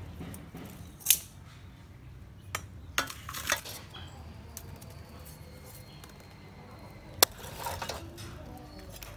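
Metal tongs clinking against a clay charcoal stove and lumps of charcoal knocking as they are fed into the fire: a few sharp, separate clicks, the loudest about a second in and again about seven seconds in.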